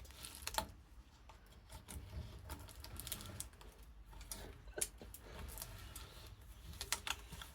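Scattered light clicks and taps of hand tools working at a diesel filler cap, over a low steady hum, with the sharpest clicks near the middle and near the end.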